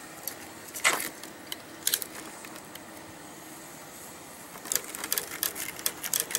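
Utility knife blade slicing the excess screen mesh off along the frame's edge: a few separate ticks, then a fast run of small ticks near the end as the blade cuts through the mesh strands.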